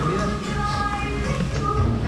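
Music playing steadily in the background.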